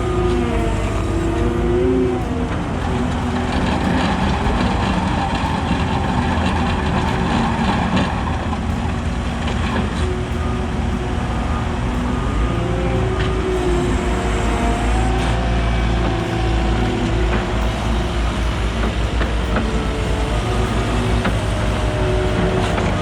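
Heavy asphalt-paving machinery running: a loud, steady diesel engine rumble, with engine pitch rising and falling a few times as the machines are throttled up and down.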